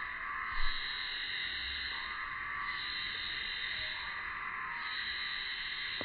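A steady, dense chorus of calling animals, its lower part swelling every couple of seconds, with a brief low thump about half a second in.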